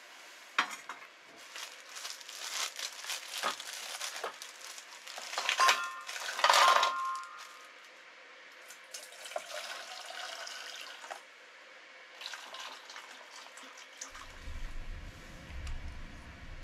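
Water splashing and dripping with clattering dishes as a glazed ceramic clay pot and stainless steel bowls are handled. The loudest clatter comes about six seconds in, with a clink that rings briefly. A low rumble comes near the end.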